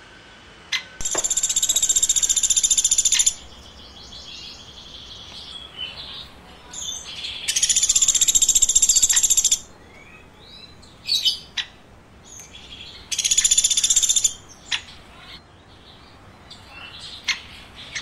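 Woodpecker calling: three long, rapid rattling trills of about two seconds each, with short sharp single calls between them.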